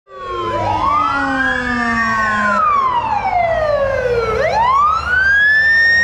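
Emergency vehicle sirens wailing as a fire engine and rescue vans move off, one siren in a slow rise and fall and a second one gliding down in the first couple of seconds. Engines rumble low underneath.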